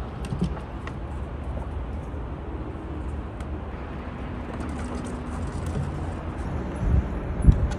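Squirrel growling, a low drawn-out rumbly call given as a warning while it defends its food at a feeder, with two dull thumps near the end.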